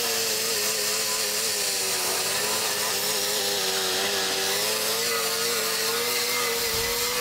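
Air-powered die grinder with a wire wheel, running at a steady whine that wavers slightly as it scrubs with a bright hiss, stripping old rust and paint from a steel dashboard panel.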